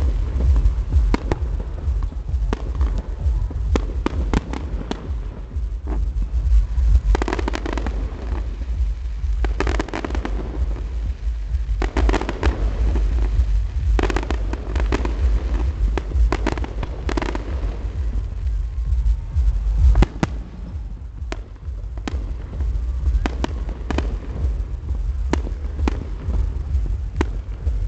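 Fireworks display: a rapid, irregular series of bangs and crackling pops, thickest in the middle, over a continuous low rumble.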